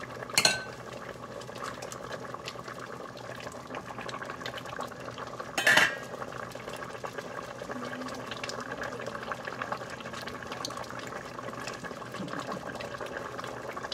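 Pot of bamboo shoots in coconut milk simmering with a steady bubbling, with two sharp clinks of kitchenware about half a second in and again near six seconds.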